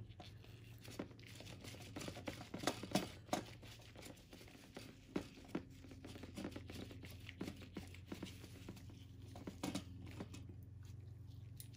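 Faint handling noises from a graphics card being taken apart: scattered small clicks and rustles of gloved fingers working the fan's power connector loose, then a Phillips screwdriver set to the fan screws. A faint steady low hum runs underneath.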